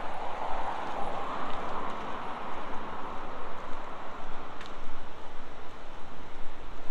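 City street traffic: a car passing on the road beside the pavement, its tyre noise fading away over the first few seconds, over a steady low traffic rumble.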